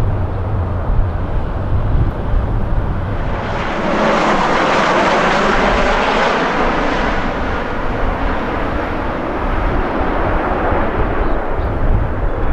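Jet aircraft passing close overhead on its landing approach: its engine noise swells about three seconds in, is loudest for a few seconds, then fades away. Strong wind buffets the microphone with a low rumble before and after the pass.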